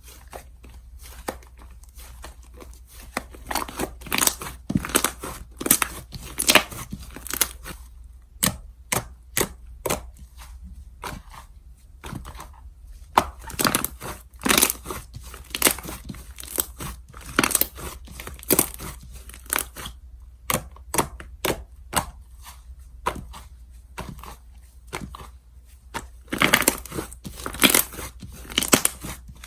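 Slime being squished, poked and stretched by hand, giving irregular sticky clicks, pops and crackles in quick clusters, busiest near the end.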